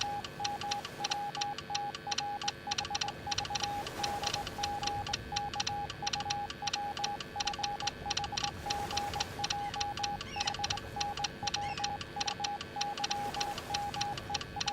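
Morse code sent as a single tone of about 800 Hz, keyed on and off in short dots and longer dashes, over a steady rapid clicking.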